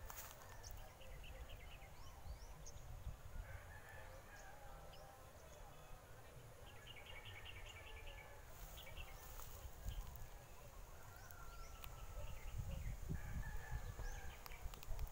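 Small birds chirping, with several quick trills of rapidly repeated notes, and a rooster crowing, over a faint low rumble.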